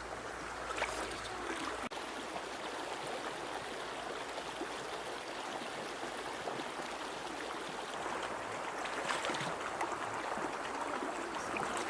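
River water running steadily over stones, with a few faint ticks or small splashes.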